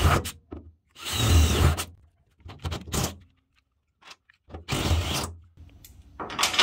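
DeWalt cordless drill motor running in several short bursts, about a second each with pauses between, as the bit bores holes through the sheet-steel floor of a 1966 Ford Bronco's rear bed.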